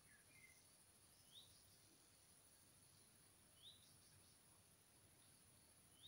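Faint outdoor ambience: a distant bird giving a short rising call about every two seconds, with a few softer chirps near the start, over a steady high-pitched hiss.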